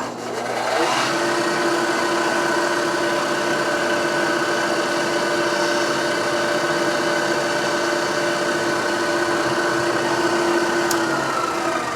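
Electric drill motor spinning up, running at a steady speed while drilling out a broken cylinder-head stud hole in a motorcycle's cast cylinder, then winding down near the end.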